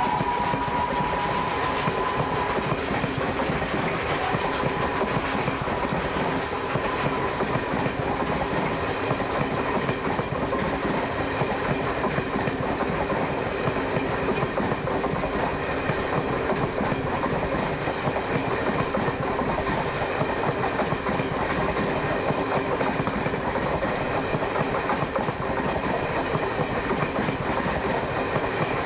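Indian Railways passenger coaches passing close by at speed: a steady rumble and clatter of wheels on the rails, with a brief high squeal about six seconds in.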